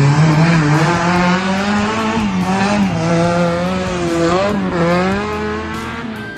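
Tubular off-road buggy's engine revving hard as it drives past on a dirt track, its pitch rising and dropping back twice with the throttle, then fading as it moves away.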